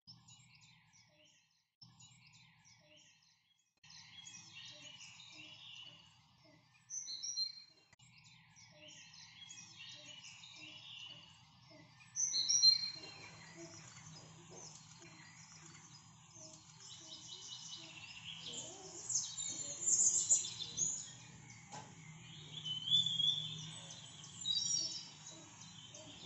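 Several birds chirping and calling, with a few louder sharp calls standing out, over a low steady hum.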